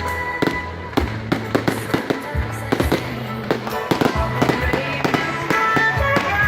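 Fireworks going off in a rapid string of sharp bangs, several a second, over loud music.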